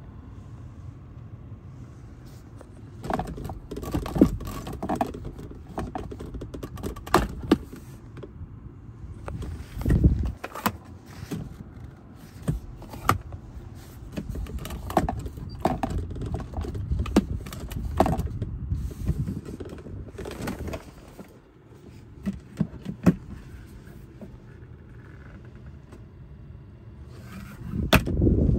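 Irregular clicks, knocks and scrapes of hands handling the centre-console controls of a 1999 Lexus LX470, over a low steady rumble. There is a louder thump about ten seconds in and a cluster of knocks near the end.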